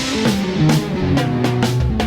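Music: guitar over a drum kit, with regular drum strikes and shifting guitar notes.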